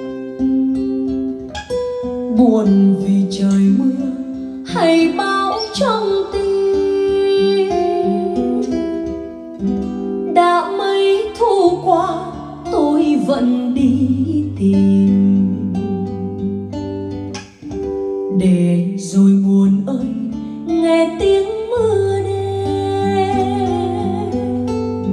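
Music: a song with a voice singing over plucked acoustic guitar.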